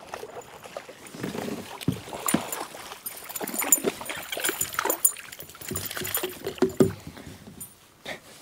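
A hooked bass thrashing and splashing at the surface beside a plastic kayak as it is reeled in and grabbed by the lip, with irregular splashes and knocks against the boat.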